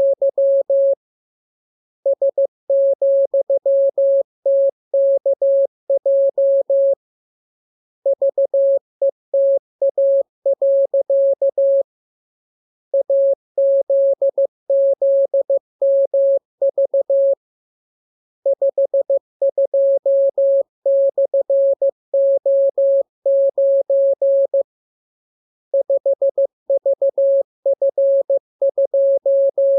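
Morse code sent as a single steady beep tone keyed on and off in dots and dashes. The characters come in groups, with pauses of about a second between groups. This is receiving practice in the style of amateur-radio CW.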